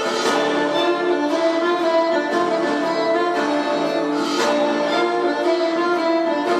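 Figure skating free-program music playing over the rink's loudspeakers: a melody of held notes.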